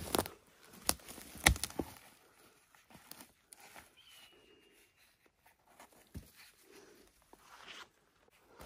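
Footsteps on the forest floor, with a few irregular sharp crackles, the loudest about a second and a half in.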